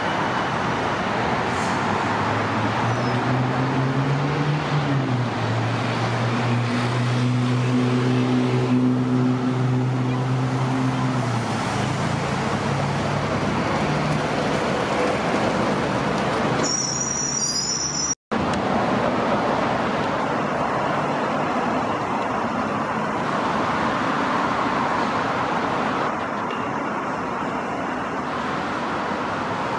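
Busy road traffic running past, with a low droning engine or motor tone that rises and then holds for several seconds in the first third. The sound drops out for an instant about two-thirds through, then the traffic goes on.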